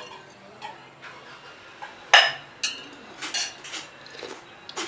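Metal ladle clinking against the side of a metal soup pot: a few sharp clinks with a short metallic ring, the loudest about two seconds in, then lighter clinks.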